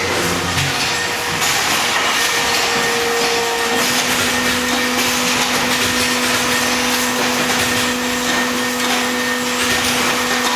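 Hydraulic baling press running: a steady mechanical hum and whine from its hydraulic power pack, with a lower tone coming in about four seconds in as the load on the pump changes.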